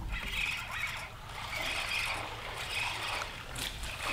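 Steady hum and hiss of road traffic crossing the bridge overhead.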